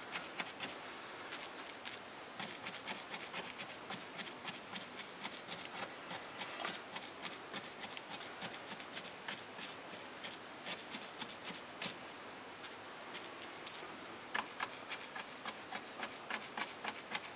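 Large round paintbrush stippling paint onto a fascia board with quick punching strokes: a run of soft, scratchy taps and brush rubs, several a second, easing off for a moment about twelve seconds in.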